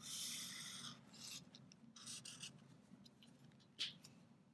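Marker tip drawing strokes across shrink plastic: a faint scratchy hiss for about a second, then a few shorter strokes. A light tap follows near the end.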